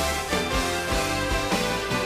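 Background music with a steady beat and sustained instrumental chords.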